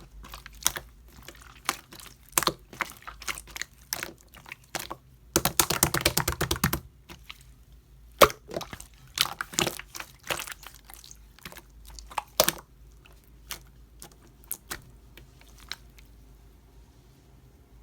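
Slime being pressed and squeezed by hand, giving sharp clicking and popping sounds. A dense run of rapid crackling pops comes about five to seven seconds in, and the clicks thin out near the end.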